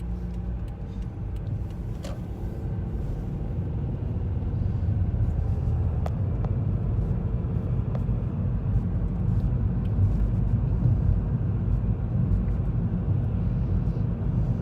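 Steady low rumble of a car on the road, heard from inside the cabin, growing a little louder a few seconds in, with a few light clicks.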